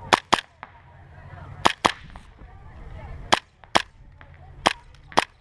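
Tokyo Marui Hi-Capa 5.1 gas blowback airsoft pistol, short-stroked, firing eight sharp shots in four quick pairs about a second and a half apart.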